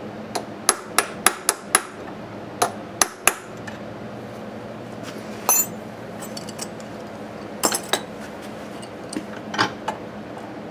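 A small hammer tapping on a punch held against a heated cast-iron part of a 1930 Briggs & Stratton Model FH engine, shocking it to free a seized yoke pin: about nine sharp metallic taps in two quick runs over the first three and a half seconds. A few lighter metal clinks follow.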